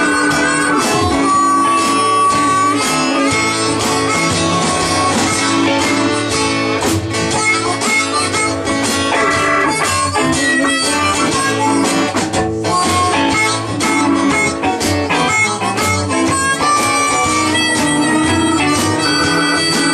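A live blues band: a harmonica, cupped against a microphone, plays lead lines with held, bending notes over an archtop electric guitar and an upright double bass.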